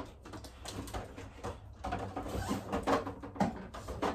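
Rustling and irregular light clicks of snack wrappers and packaging being handled.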